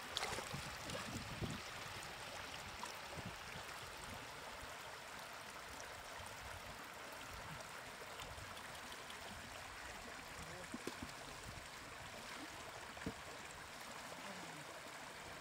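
Steady rush of flowing water, with a few faint knocks or splashes now and then.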